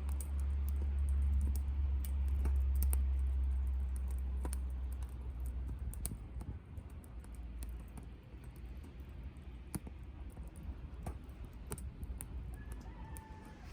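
Softwood fire burning in a small wood-gas camp stove, crackling with scattered sharp pops. A low rumble fades after about five seconds, and a bird chirps near the end.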